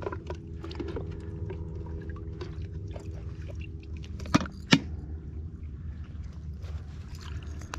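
Light water sloshing around a floating plastic bait bucket while a live baitfish is taken out and hooked, with small handling ticks and two sharp plastic clicks from the bucket's lid a little after four seconds in.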